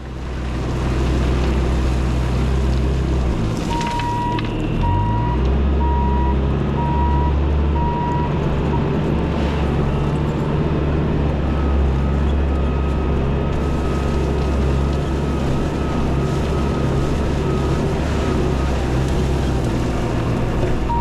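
Bobcat T650 compact track loader's diesel engine running under load while cutting a drainage swale in gravel, revving up about four seconds in. A backup alarm beeps steadily for a few seconds just after the engine revs up.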